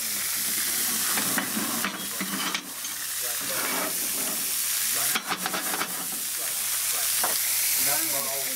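Finely chopped onion sizzling in hot oil in a cast iron skillet, a steady frying hiss, with a few sharp clicks about two seconds in and again around five seconds.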